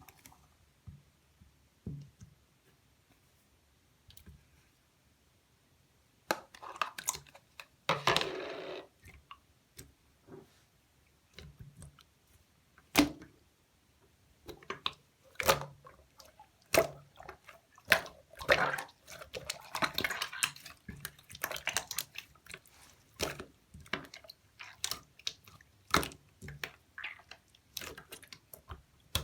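Slime being squished and pressed by hand, making wet clicks, pops and squelches. The sounds are sparse at first and come much more often from about six seconds in.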